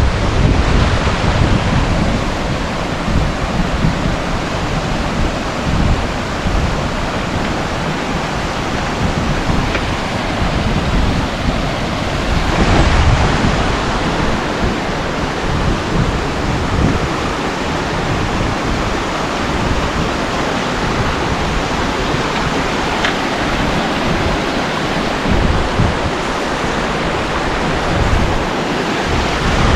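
Steady rush of a waterfall's falling water, with wind buffeting the microphone in uneven low gusts.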